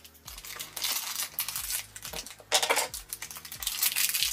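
Small red plastic blind bag crinkling and rustling in the hands as it is worked open to get a figure out, in a run of short, uneven bursts.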